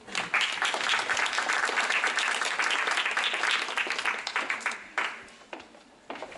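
Audience applause: many people clapping together, dying away about five seconds in to a few last scattered claps.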